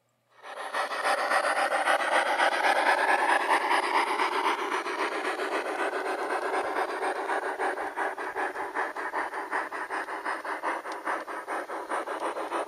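Sound unit of a G-scale model geared steam locomotive chuffing rapidly and evenly as it runs. The chuffing starts suddenly about a third of a second in, is loudest over the first few seconds, then settles.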